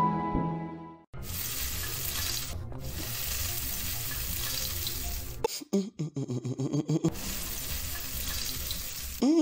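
Background music fades out. Then comes a steady rushing hiss of kitchen noise, broken for about a second and a half past the middle by a short choppy stretch with some pitched sound.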